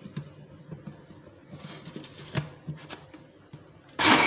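A few light clicks and knocks as the blender jar and its lid are handled, then about four seconds in the countertop blender's motor switches on with a sudden loud, even whir, blending a yogurt, gram-flour and water batter.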